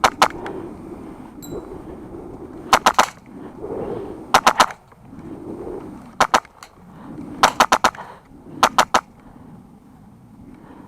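Airsoft rifle firing short bursts of two to four rapid shots, six bursts about one to two seconds apart.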